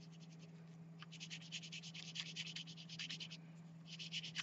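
Oil pastel scratching on paper in fast back-and-forth strokes as light blue is worked into green. The strokes are faint, start about a second in and pause briefly near the end.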